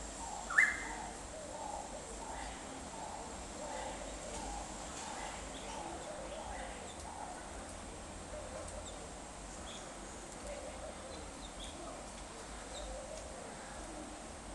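Birds calling: one loud, short rising note about half a second in, low repeated cooing of doves, and scattered faint high chirps.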